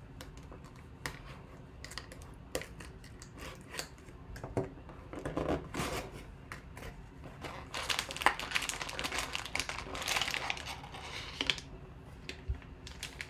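Blade slitting packing tape on a small cardboard box, with scattered clicks and scrapes, then the cardboard flaps being pulled open and the packs inside handled. About eight seconds in comes a denser stretch of crinkling and rustling.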